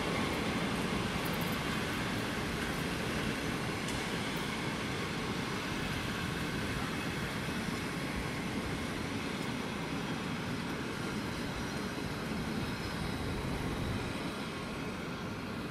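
Passenger coaches rolling slowly on the rails during shunting: a steady rumble of wheels on track with a few faint clicks early, fading near the end as they move away.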